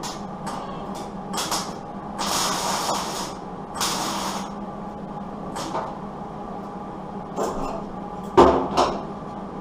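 Short hissing, crackling bursts from a MIG welder tack-welding the sheet metal of a truck door, about a dozen of them, with two longer bursts of about a second between two and four seconds in, over a steady hum. A sharp knock sounds near the end.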